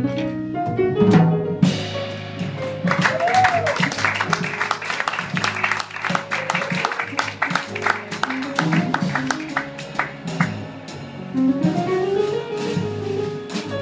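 Live jazz band playing, with the drum kit busy on cymbals and drums over moving pitched instrumental lines.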